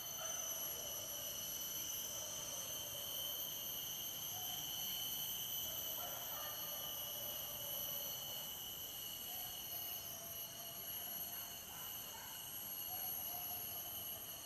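Steady, high-pitched insect chorus of the forest, several shrill tones held without a break, with fainter wavering calls lower down.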